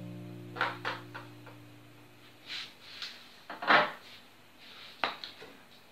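A few short knocks and scrapes of a kitchen utensil against a bowl as tuna is put into it, the loudest about three and a half seconds in.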